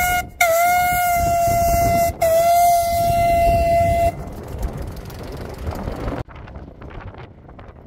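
Steam whistle of a Sentinel steam waggon at one steady pitch, blown in three long blasts with short breaks and stopping about four seconds in. After it, the quieter low rumble of vintage vehicles driving past.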